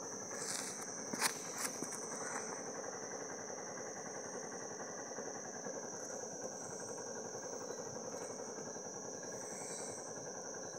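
Night insects, crickets or similar, trilling in a continuous high-pitched chorus over a steady low background hiss. A few sharp clicks come about a second in.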